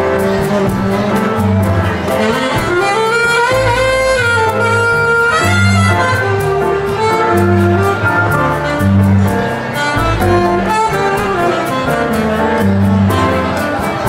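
Live jazz combo playing: a saxophone carries the melody over a walking upright double bass, with hand percussion (congas and shaker) ticking out a steady beat.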